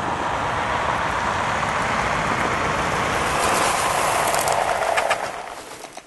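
A vehicle driving past, a steady rush of tyre and engine noise that swells and then dies away quickly near the end.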